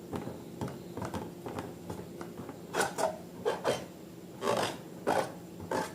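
Irregular short rubbing and scraping strokes from slime-making materials being handled, with louder strokes from about three seconds in.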